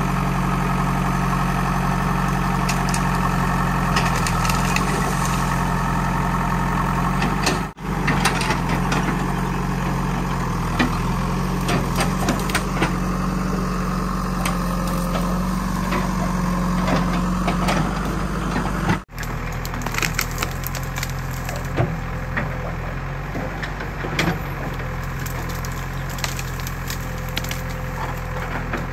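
JCB 3DX backhoe loader's Kirloskar diesel engine running steadily while the bucket tears through a bush and tree branches, with repeated cracking and snapping of wood.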